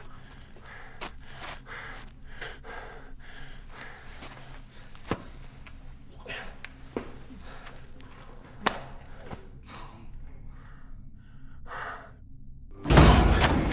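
A man breathing hard in short gasps over a low steady hum, with a few sharp knocks, then a loud bang near the end.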